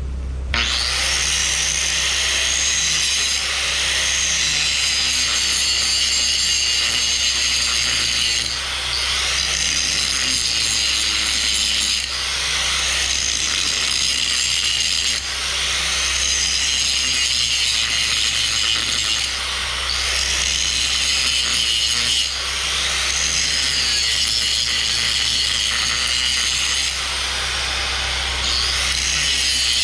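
Grinder working steel, grinding down a fresh weld bead on a backhoe dipper stick to thin it before the next pass, its whine rising and falling with the load and easing off briefly every few seconds.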